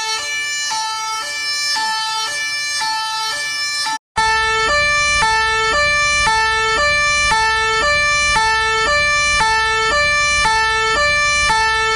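Two-tone emergency siren steadily alternating between a low and a high note, each held about a third of a second. The sound cuts out for an instant about four seconds in, then resumes.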